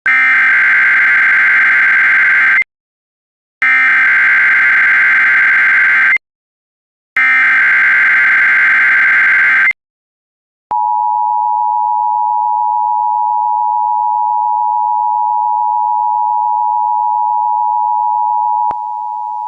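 Emergency Alert System header for a tornado watch: three loud buzzing digital data bursts, each about two and a half seconds long with a one-second pause between them. About eleven seconds in, the steady two-tone EAS attention signal begins and continues, dropping slightly in level near the end.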